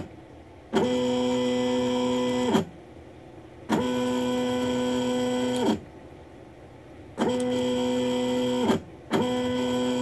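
Stepper motor of a CNC-converted mini mill jogging the Y-axis table back and forth, in four runs of about two seconds each: a steady pitched whine that ramps briefly at each start and stop. The table is being driven to trip the newly fitted Y-axis limit micro switch on and off.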